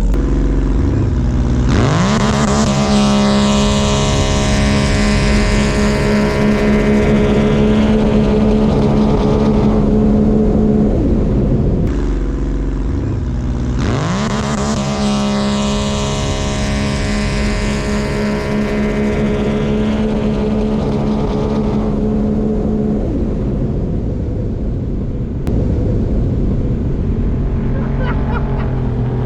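Racing jet ski engines launching and running flat out, twice: each time the pitch climbs sharply, then holds at full throttle for about eight seconds before easing off.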